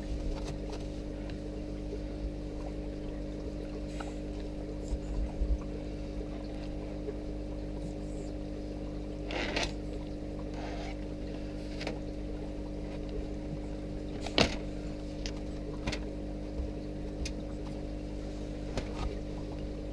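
Steady electric hum of running aquarium equipment, with a few faint clicks and knocks, the clearest about nine and a half and fourteen seconds in.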